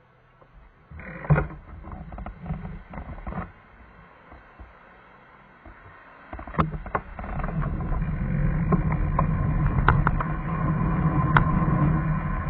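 Knocks and clatter about a second in, then from about six seconds in a steadily rising rumble of road and wind noise with scattered sharp clicks and rattles as the camera's vehicle pulls away from a stop and picks up speed.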